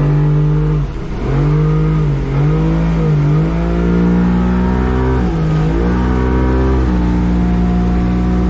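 Boat's outboard motor running under way, just trimmed lower in the water; its revs dip and pick up again several times in the first five seconds, then hold steady.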